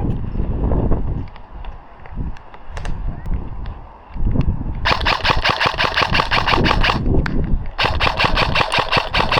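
Airsoft electric gun (AEG) firing on full auto in two bursts of rapid, even clicks: the first starts about five seconds in and lasts about two seconds, and the second starts just under a second later and runs on. Before the bursts there is only low rumbling and knocking.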